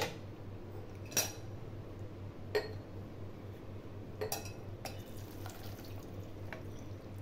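About five short clinks and knocks of kitchenware: a stainless steel mesh strainer and glass bowls being handled and set down, over a low steady hum.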